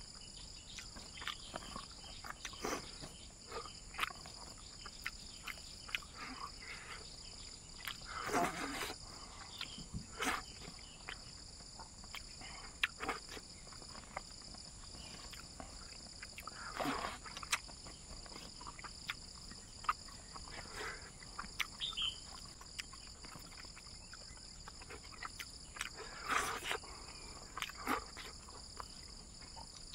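Close-up eating sounds: wet chewing, lip smacks and clicks as rice and fish are eaten by hand, with a few louder mouth noises about every eight or nine seconds. Behind them, a steady high-pitched insect chorus.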